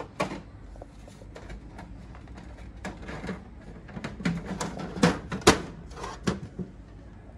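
Plastic side cover panel of a Fuji Xerox DocuCentre copier being fitted back on by hand, knocking and clicking against the frame several times as it seats, the loudest knocks about five seconds in.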